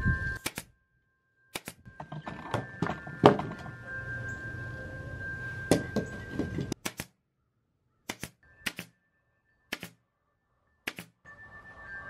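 A pneumatic nail gun firing nails into sticks: about a dozen sharp, separate shots at irregular intervals, some in quick pairs.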